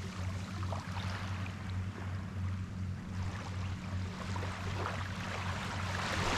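Small sea waves washing onto the shore, swelling and fading, with a bigger surge building near the end, over a steady low hum.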